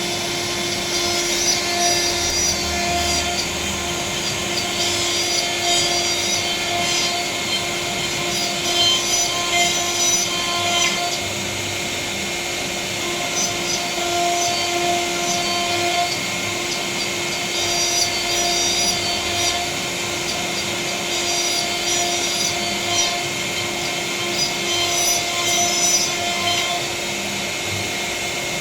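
CNC router spindle running with a steady whine as its bit cuts into a wooden panel. The cutting noise comes and goes in stretches of a few seconds as the tool moves along its path.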